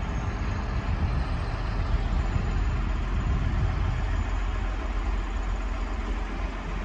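Heavy diesel engine running steadily, a constant low rumble.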